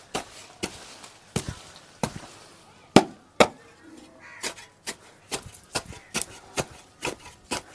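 Small metal spade chopping down into the soil and thick roots of a root-bound hibiscus root ball, a run of sharp chops about three a second that come faster in the second half, the loudest about three seconds in. The roots are thick and hard to cut with the spade.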